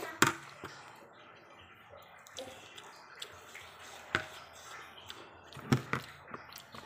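Eating noises of a person eating rice by hand: scattered sharp, wet clicks and smacks while chewing, the loudest just after the start and a close pair near the end.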